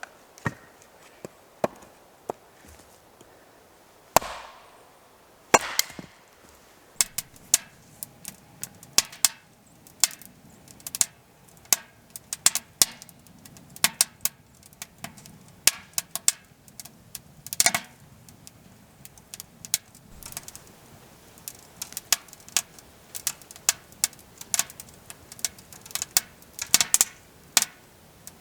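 Firewood being processed by hand: a run of sharp wooden knocks and cracks, a few at first, then coming quickly at several a second in irregular bursts.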